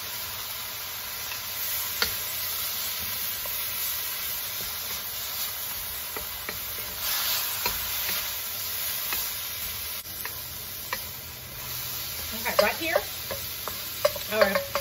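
Napa cabbage, onion and carrots sizzling in a hot wok while a spatula stirs and tosses them, with small scrapes and knocks of the spatula against the pan. Near the end a few short pitched sounds stand out above the sizzle.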